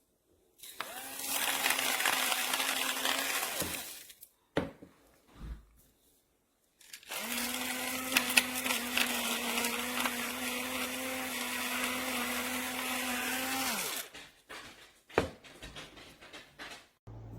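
Battery-powered electric salt and pepper grinder running twice, a steady motor hum with grinding over it, first for about three seconds and then for about seven. Each run drops in pitch as the motor stops. A few short knocks fall between and after the runs.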